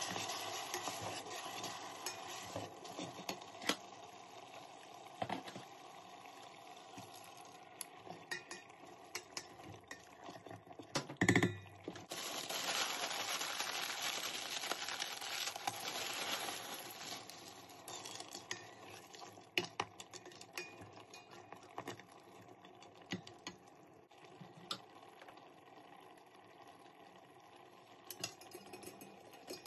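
A spoon stirs mince and stock in a stainless steel multicooker pot, with sizzling and clinks of metal on the pot, and one loud knock about eleven seconds in. Then comes a longer rush as mixed vegetables are poured in from a bag, followed by lighter clinks as a metal wire rack is set into the pot near the end.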